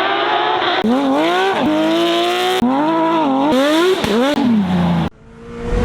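Porsche 911 (997) GT3 rally car's flat-six engine revving hard, its pitch climbing and dropping sharply several times through gear changes, in a few short passes cut together; it cuts off suddenly about five seconds in.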